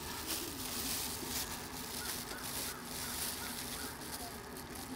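Plastic bag crinkling and rustling in uneven bursts as raw pork is handled inside it.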